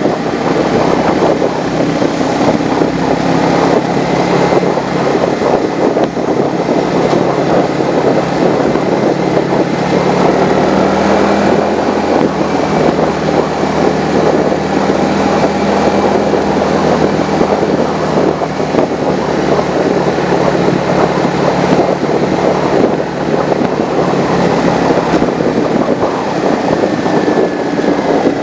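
Motorcycle engine running at a steady cruise, mixed with heavy wind and road noise on the bike-mounted microphone.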